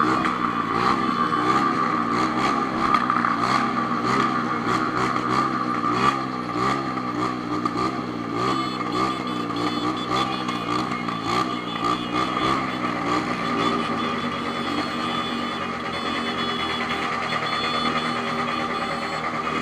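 Honda CB1000's inline-four engine running steadily, with a high steady whine and a fast irregular clicking over it that fades after about twelve seconds. This is the noise the owner is showing.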